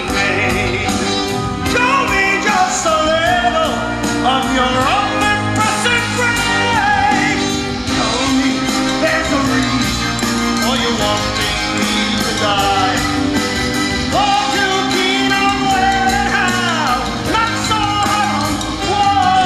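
Male lead singer belting a rock-musical song live through a headset microphone, his held, gliding notes over a rock band with a steady drum beat.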